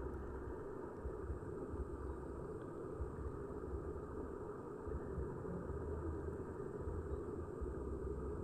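Steady, muffled water noise with an uneven low rumble, as heard by a phone recording underwater.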